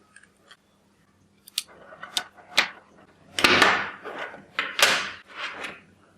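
3D-printed plastic model parts handled and fitted together: several sharp clicks and knocks, then two longer scraping rustles about halfway through and a second later.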